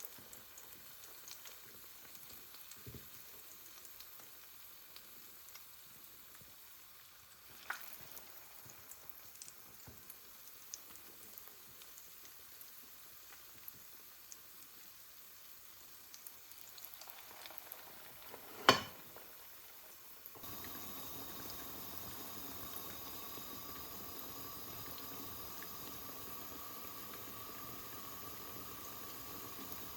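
Shami kebabs shallow-frying in oil, a faint crackling sizzle with small pops. There is a click about 8 seconds in and a sharp knock just before 19 seconds. From about 20 seconds a louder, steady hiss with a hum sets in.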